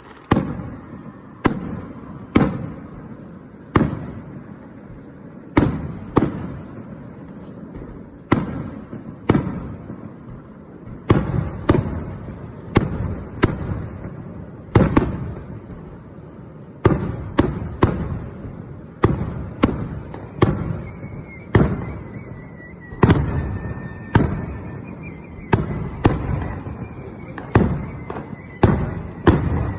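Fireworks bursting: sharp bangs, each trailing off in a rolling rumble. They come every second or two at first, then faster and more overlapping from about a third of the way in.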